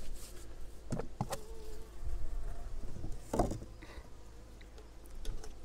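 Honeybees buzzing around an open hive, one flying close with a wavering hum that comes and goes. A few soft knocks from handling at the hive: two close together about a second in and one more past the middle.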